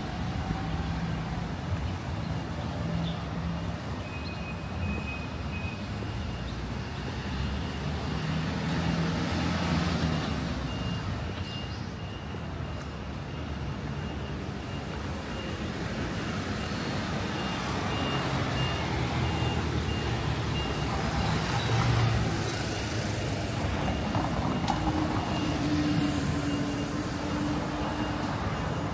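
City street traffic: a steady rumble and hiss of passing vehicles. Through the middle of it, a short high beep repeats at an even pace for several seconds.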